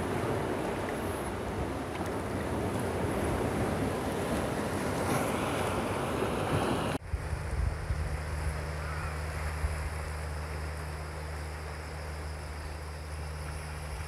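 Sea surf washing among shoreline boulders, a steady rush of water. About seven seconds in it cuts off abruptly to a quieter sound: a low steady rumble over a softer wash of water.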